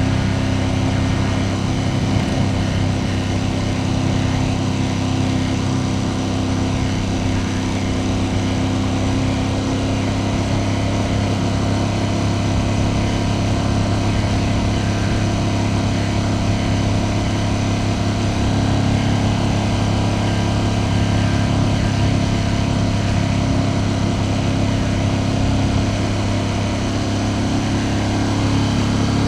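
Ducati Panigale V2S's twin-cylinder engine running with a steady note, its pitch holding nearly constant throughout.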